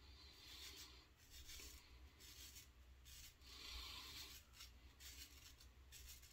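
Faint scratchy rasp of a shavette razor blade cutting stubble through lather on the neck, in a run of short strokes about one a second, shaving against the grain.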